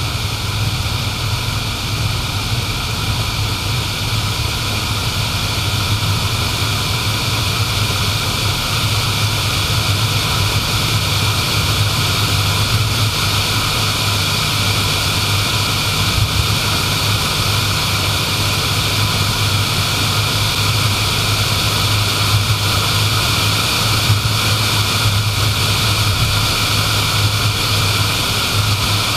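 A car driving at steady road speed: continuous tyre and road noise over a low engine hum.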